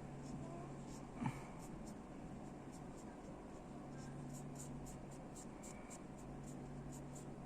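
Faint, quick ticks and scratches of a paintbrush dabbing paint onto a small 3D-printed plastic crate, over a steady low hum. A single sharp knock comes about a second in.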